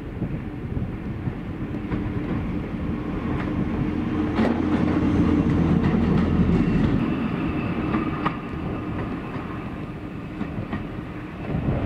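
North Eastern Railway 1903 electric autocar passing close by: a steady hum from its engine and traction gear that swells as it goes past, about four to seven seconds in, with a few clicks of the wheels over rail joints.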